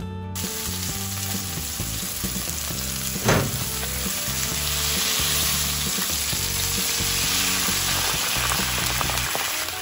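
Boneless chicken thigh pieces sizzling in olive oil in a nonstick frying pan while being stirred and turned with a silicone spatula, with one sharp louder hit about three seconds in. Background music plays underneath.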